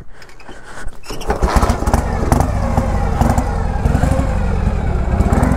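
Harley-Davidson motorcycle's V-twin engine starting about a second in, then running at a steady idle.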